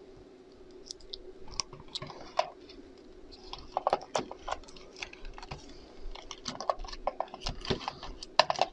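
Irregular small plastic clicks and knocks of a handheld digital multimeter's case and battery being handled, as a battery is fitted into it.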